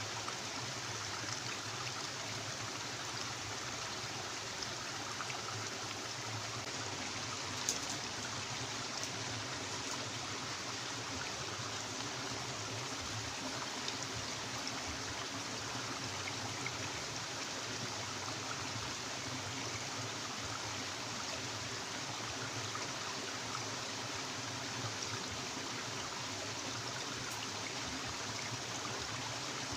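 Stream water flowing steadily, with one short click about 8 seconds in.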